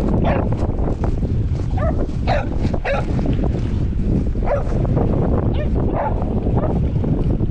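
Dogs giving a string of short barks and yips, several calls spread through the stretch, over heavy wind rumbling on the microphone.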